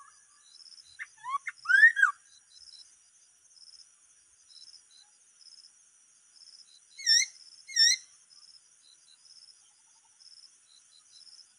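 Songbird known in Hmong as 'noog sab hwj' calling: a quick phrase of slurred whistled notes about a second in, then two short down-up notes about seven seconds in. A steady pulsing chorus of insects runs underneath.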